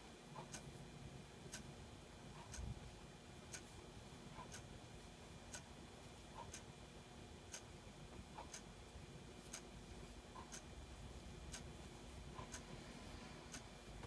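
A clock ticking steadily at about one tick a second, faint, in an alternating tick-tock. There is one soft low bump about three seconds in.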